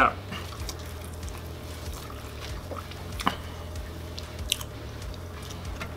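Soft squishing and a few faint clicks as three grilled cheese sandwiches are squeezed together by hand into one bundle, over a steady low hum.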